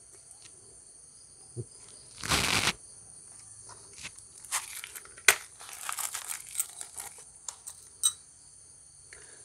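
Hand-handling noises as crankshaft main bearing shells are fitted into a Maruti Zen engine block's main bearing saddles: a short scraping rustle about two seconds in, then scattered light rustles and a few sharp metal clicks. Crickets chirp steadily throughout.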